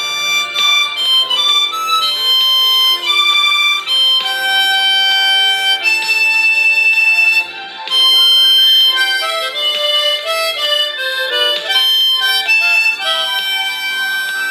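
Harmonica played solo: a melody of single held and quicker notes, with a short break about seven and a half seconds in.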